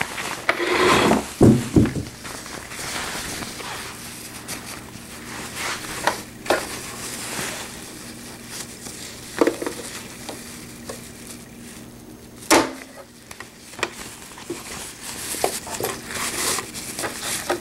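PUL fabric and a zipper being handled at a sewing machine: rustling and crinkling with scattered clicks and knocks. There are a few heavier knocks about a second and a half in and a sharp knock about twelve seconds in.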